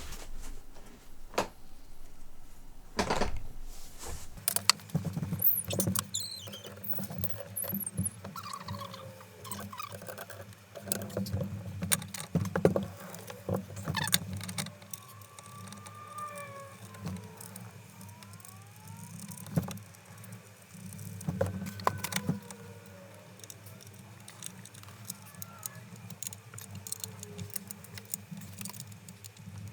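Scattered clicks, taps and light rattles of chair parts being handled during assembly, over a steady low hum that begins about four seconds in.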